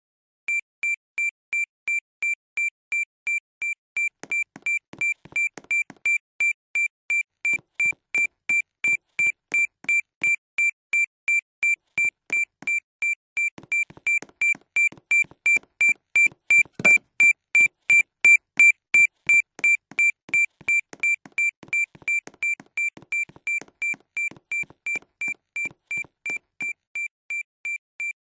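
Malfunctioning school fire alarm beeping: a steady high tone about twice a second, starting about half a second in. Faint knocks sound under it, with one sharper knock about 17 seconds in.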